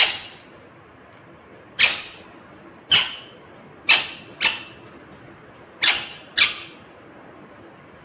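Ringneck parakeet giving seven short, sharp calls, spaced a second or so apart, with two of them coming in quick pairs about four and six seconds in.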